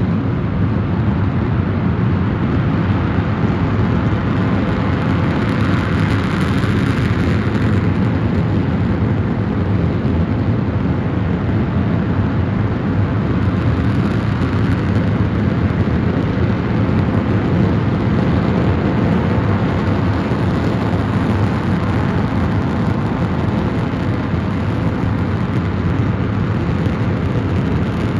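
Launcher E-2, a mostly 3D-printed 22,000 lbf oxidizer-rich staged-combustion LOX/kerosene liquid rocket engine, firing at steady state: a loud, unbroken noise, heaviest in the low end, that holds an even level with no change in thrust.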